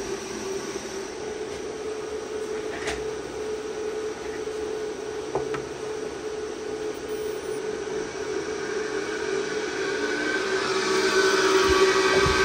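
An electric motor running off a Mitsubishi FR-A740 variable-frequency drive under test, a steady electrical hum and whine. About nine seconds in it grows louder and a higher whine comes in as the drive's speed setting is turned up.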